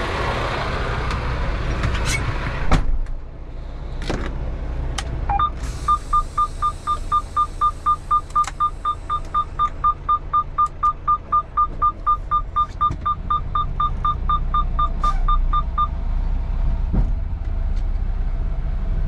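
Semi-truck cab warning chime beeping evenly, about four beeps a second, for some ten seconds, over the steady rumble of the idling diesel engine. A sharp thump comes about three seconds in.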